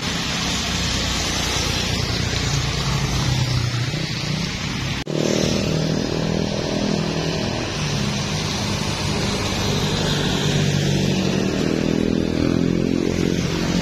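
Motorcycles and a motorized tricycle passing on a wet road: engines running over a steady hiss of wet tyres. About five seconds in the sound cuts abruptly, then several motorcycle engines, along with a jeepney, pass in a line, their engine notes overlapping.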